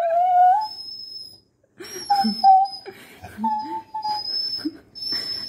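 A beagle whining in a series of high, drawn-out whines. The first lasts about a second and shorter ones follow, with low grumbles between them: a reluctant dog protesting at being called for a bath. A thin, high whistle-like tone comes and goes alongside.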